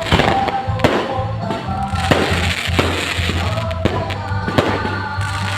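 Music with steady bass and held melody notes over a fireworks salvo. Sharp bangs land roughly every 0.7 seconds throughout.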